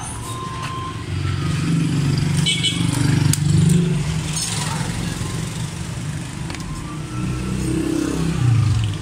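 Motor vehicle engines running, a low rumble that swells and fades as they pass, over a few sharp clicks from a hand rivet tool closing on the aluminium frame.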